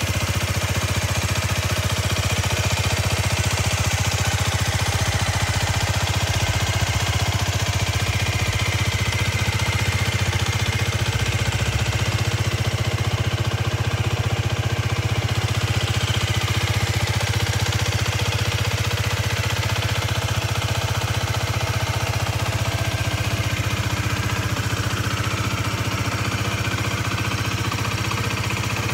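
Aprilia RS4 125's single-cylinder four-stroke engine idling steadily.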